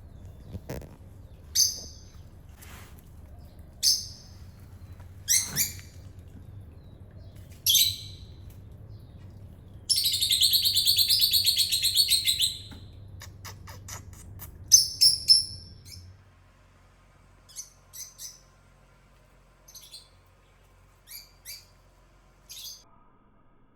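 Short, high chirps, bird-like, with a loud rapid chirping trill of about two and a half seconds about ten seconds in, then fainter scattered chirps. A low steady hum underneath stops about two-thirds of the way through.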